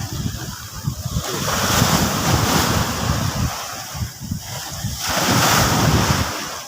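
Sea waves breaking and washing up the shore, swelling twice and falling back, with wind buffeting the microphone.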